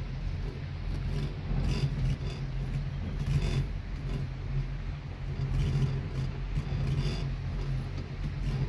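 Riding an open chairlift: a steady low rumble and hiss from the moving lift and open air, with a few brief rustles.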